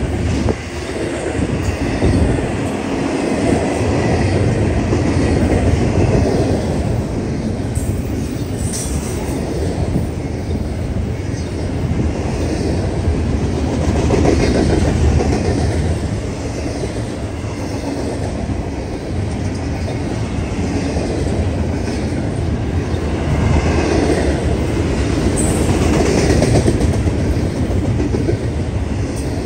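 A train rolling past with a loud, steady rumble, its steel wheels clicking over the rail joints in an even rhythm.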